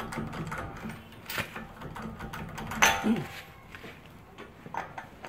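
Socket wrench turning the front hub axle nut on a newly fitted CV axle, with a run of quick metallic clicks and then a louder clank about three seconds in.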